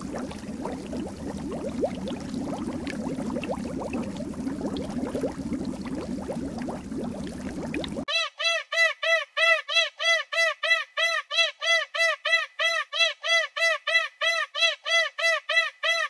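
A low outdoor background hum with faint scattered ticks, then from about halfway a rapid, evenly repeated high chirp, about three a second, each note rising and falling in pitch.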